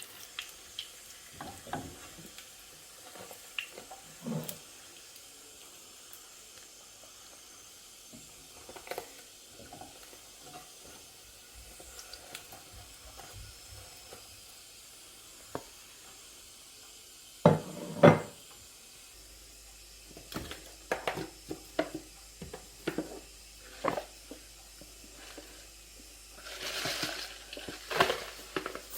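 Kitchen work: scattered knocks and clinks of utensils and dishes being handled, loudest in a pair of knocks a little past halfway, with a brief rush of noise near the end.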